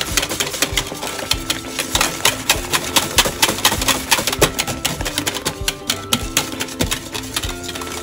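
Wire balloon whisk beating thick custard cream in a copper pot, its wires clacking rapidly and unevenly against the pot's sides as the custard cooks and thickens.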